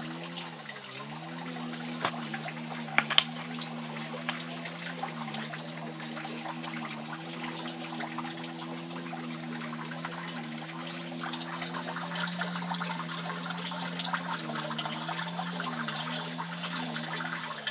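Water running and trickling in an aquaponics fish tank, under a steady low hum that dips briefly in pitch a couple of times. A few small sharp knocks come about two and three seconds in.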